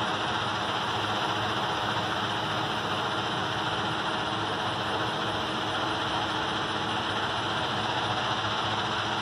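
Passing train: a steady, unbroken mechanical rumble and rushing noise that holds at an even level throughout.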